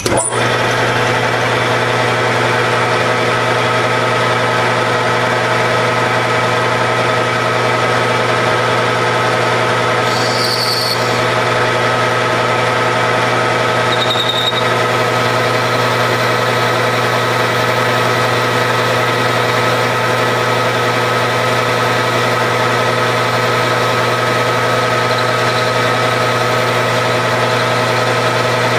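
Grizzly G4003G gear-head lathe running steadily at speed, a low hum with a steady gear whine over it, while a boring bar takes a light skim cut inside the bore of a chuck backing plate. Brief high squeals come from the cut around the middle.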